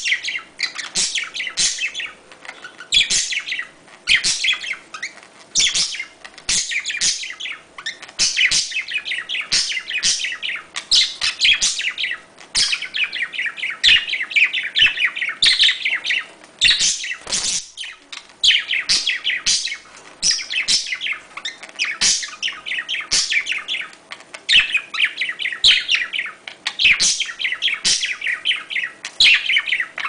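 Budgerigar warbling and chattering: fast runs of chirps, squeaks and clicks with short pauses every second or two.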